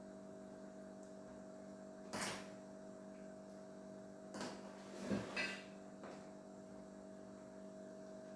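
A spoon knocking and scraping against a pot a few times, about two, four and five seconds in, as Atama leaves are turned in boiling water, over a steady electrical hum.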